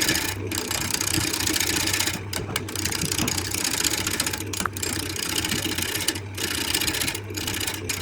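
Electric woodworking power tool running with a steady hum, while a dense rasping cutting noise breaks off briefly several times as the tool comes off the wood.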